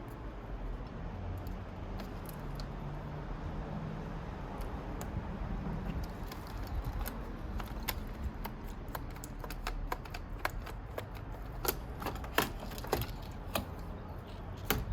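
Irregular light clicks and taps of small metal parts being handled as a heatsink is worked free inside an iMac. The clicks come thicker in the second half.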